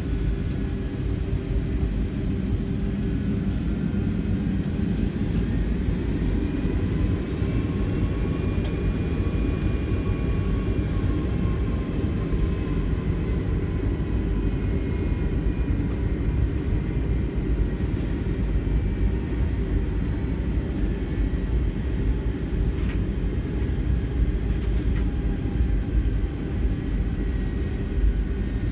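Boeing 757-300 airliner's jet engines and rolling airframe heard from inside the passenger cabin while taxiing on the runway before takeoff: a steady low rumble with a faint engine whine that rises and then falls in pitch.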